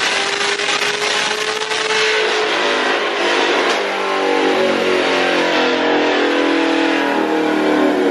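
Cammed, supercharged Corvette Z06 V8 at full throttle on a chassis dyno, its note climbing steadily with the revs; about three to four seconds in the throttle closes and the engine winds down with a falling note.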